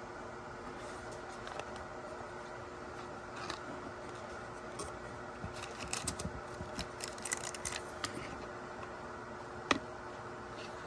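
Small handling noises from unboxing a miniature toy: scattered light clicks and crinkles of plastic packaging, busiest in the middle, with one sharper click near the end, over a steady background hiss.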